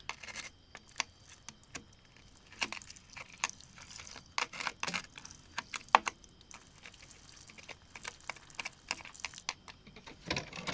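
Irregular sharp clicks and taps of hard stone being knocked and pried loose, with the sharpest crack about six seconds in and a louder cluster of knocks near the end.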